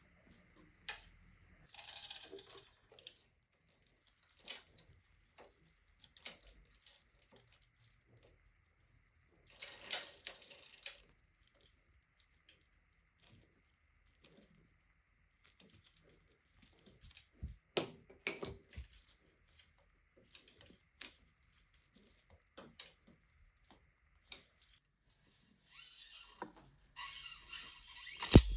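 Irregular metallic clicks, clinks and short rattles of small metal bicycle parts and hand tools being handled, with a few brief stretches of denser scraping or rattling: one about two seconds in, one about ten seconds in, and one near the end.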